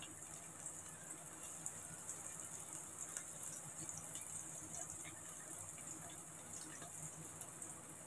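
Faint, steady sizzle of gram-flour-coated taro (arbi) pieces shallow-frying in hot oil over a low flame.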